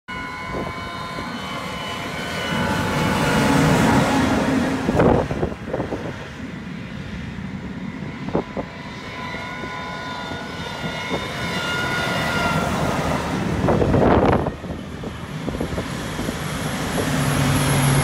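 John Deere S790 combines driving by on the road: a steady engine drone with whining tones, growing louder as each machine comes up and passes, loudest about four seconds in and again near the end, with a few sharp knocks along the way.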